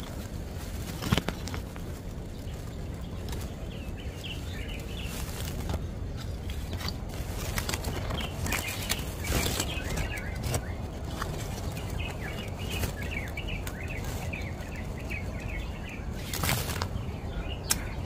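Small birds chirping in quick, repeated twittering runs, with a few sharp knocks and rustles of twigs as the camera is pushed against the nest, over a low rumble of wind and handling noise.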